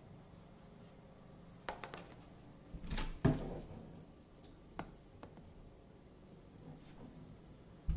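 Scattered household knocks: a few light clicks and one dull thump about three seconds in.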